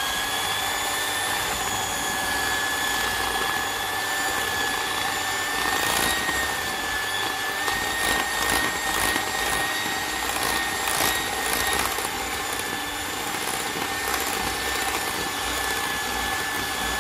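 Electric hand mixer running steadily at one speed, its beaters whipping a thick flour-and-yogurt batter in a glass bowl. The motor gives a steady high whine, with scattered clicks in the middle stretch.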